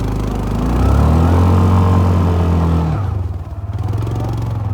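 Vehicle engine running, with a louder pitched, drawn-out sound rising over it for about two seconds in the middle before dropping away.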